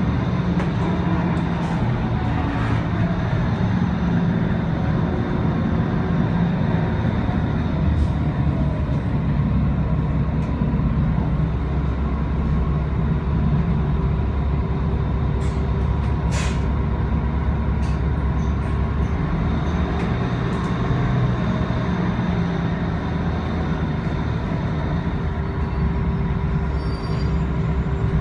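City bus running along, heard from inside: a steady low engine drone with a few brief clicks and rattles.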